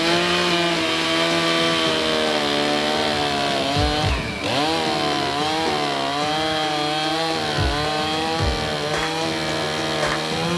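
Chainsaw running under load, cutting through a red cedar log; the engine pitch wavers as the chain bites and dips briefly about four seconds in.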